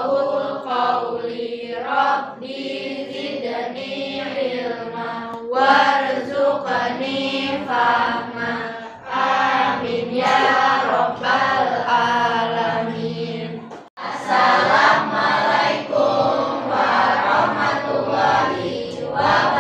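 A class of schoolchildren chanting together in unison, as a group recitation. The sound cuts out abruptly about two-thirds of the way through, then the voices start again.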